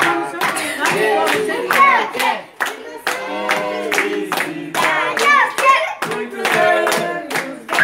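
A group of children and adults singing a Brazilian birthday song together while clapping along in a steady rhythm.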